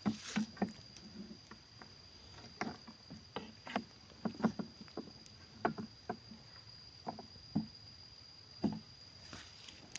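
A wooden stick sloshing and knocking in a plastic bucket of liquid rubber latex, about a dozen irregular knocks and splashes. A steady high-pitched insect buzz runs underneath.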